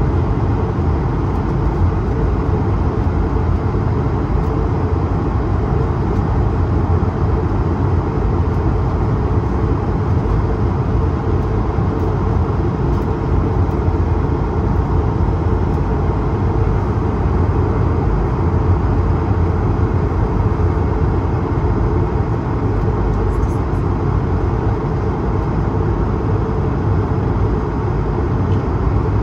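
Steady cabin noise aboard an Airbus A220-300 in flight, heard from a window seat near the front: a constant low rumble of airflow and the Pratt & Whitney PW1500G geared turbofans, even and unchanging.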